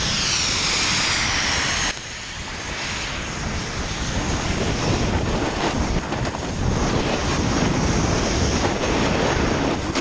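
Snowboard riding down a groomed slope: wind buffeting an action camera's microphone in a low, gusty rumble, with the board scraping over the snow. For about the first two seconds a snowmaking gun's high hiss dominates, then it cuts off suddenly.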